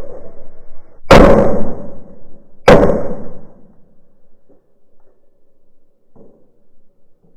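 Two pistol shots about a second and a half apart, each sharp and very loud with a ringing echo that dies away over about a second.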